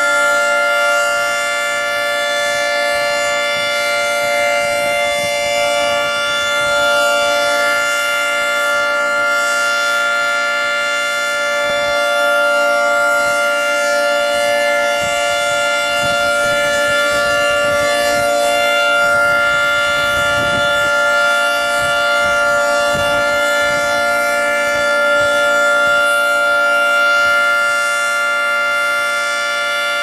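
Federal Signal 3T22A three-tone rotating civil defense siren sounding a steady, loud chord at full speed during a test. The pitch holds constant while the loudness swells and dips gently as the horns rotate.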